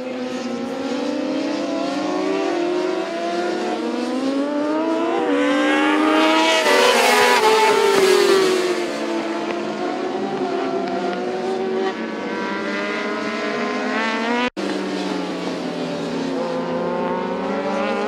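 Engines of several racing motorcycles, each pitch rising and falling as the riders shift and brake through the corners. The loudest stretch comes as a bike passes close about seven seconds in, its pitch falling as it goes by. A short break in the sound comes about two thirds of the way through.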